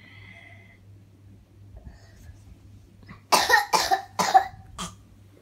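A young child coughing: a quick run of three loud coughs a little over three seconds in, followed by a fainter fourth, from a persistent cough.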